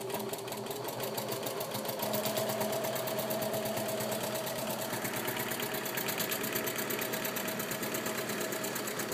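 Electric sewing machine running steadily, the needle stitching a straight line of machine quilting through a quilt in a fast, even rhythm, a little faster about two seconds in, and stopping at the very end.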